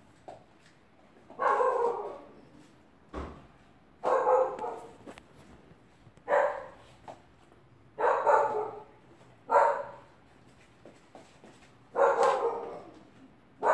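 Dog barking: six separate, drawn-out barks about two seconds apart.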